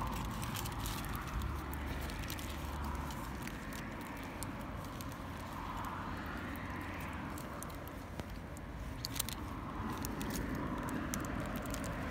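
Steady outdoor traffic noise with vehicles passing now and then, and a few small clicks.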